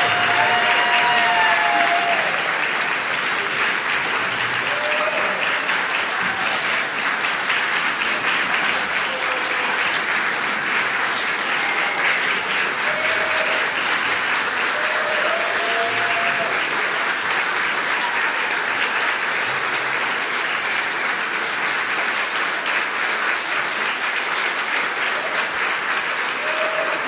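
Concert audience applauding steadily throughout, with a few short pitched calls or whoops rising above the clapping.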